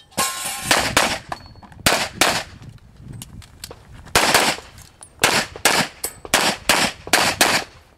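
Pistol shots fired rapidly in a practical-shooting stage run: about a dozen sharp reports, in quick pairs and short strings with brief pauses between them.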